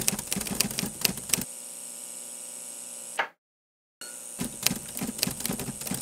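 Typewriter-style key clacks in quick, irregular strokes over a steady high hum. The clacks stop about a second and a half in, the sound cuts out completely a little after three seconds, and the clacking resumes about a second later.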